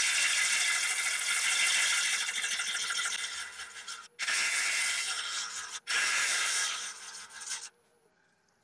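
Turning tool cutting the outside of a large yew bowl blank on a wood lathe turning slowly, at about 400 rpm, a steady rough hiss of wood being cut. The cut breaks off briefly twice near the middle and stops about a second before the end.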